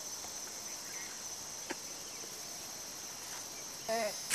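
Insects chirring steadily, a high continuous drone from the surrounding grass and bush. A single faint click sounds a little under two seconds in, and a brief voice comes just before the end.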